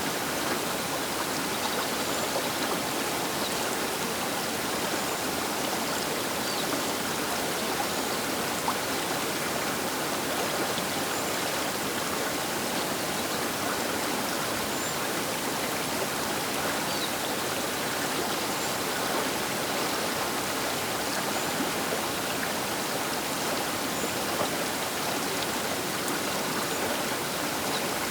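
Baker River flowing past the bank: a steady, even rush of water with little low rumble.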